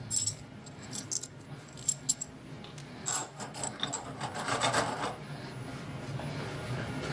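Steel ER32 collet and collet nut being handled and fitted onto a BT30 tool holder in its tightening fixture: a few light metal clicks, then rubbing and scraping of metal on metal as the nut is pressed on, over a low steady hum.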